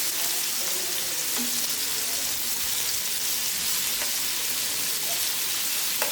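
Small marinated chicken pieces frying in hot oil in a pan: a steady sizzle with a few faint pops.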